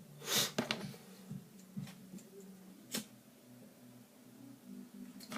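Hands working a small plastic craft piece and its wire hanger: a short rustling scrape at the start, then a few sharp clicks, one shortly after, one about three seconds in and one at the end, over a faint steady hum.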